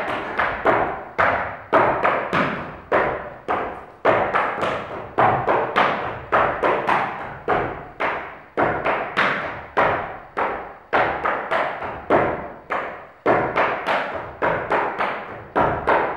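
Irish step dancer's hard shoes striking a stage board in a steady rhythm, about three sharp taps a second, each ringing out in the hall.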